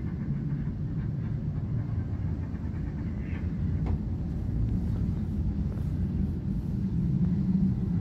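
A steady low rumble, with a faint brief higher-pitched sound about three seconds in.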